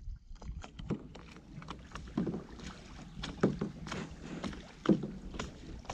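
Kayak paddling on a lake: paddle blades dipping and water splashing and lapping against a hull in short, irregular splashes, over a low rumble of wind on the microphone.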